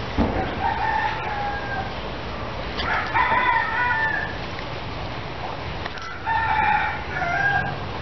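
Roosters crowing, three crows in turn, each about a second and a half long, with a brief thump at the very start.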